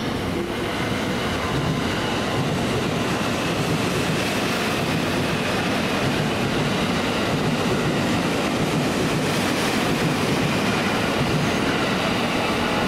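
JR Musashino Line 209-series electric commuter train running along the platform. Its steady wheel-on-rail and running noise builds over the first couple of seconds and then holds steady.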